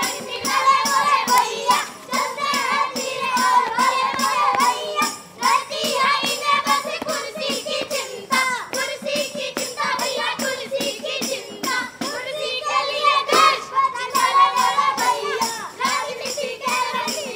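Children singing together to a steady frame-drum (dafli) beat of about three strokes a second.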